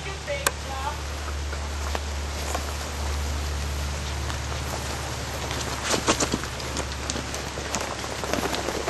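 Rain falling: a steady hiss with scattered patter, over a steady low hum.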